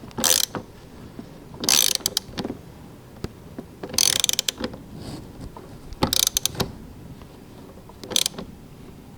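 Socket ratchet clicking in short bursts, about six in all, as the positive battery terminal clamp nut is tightened down to snug.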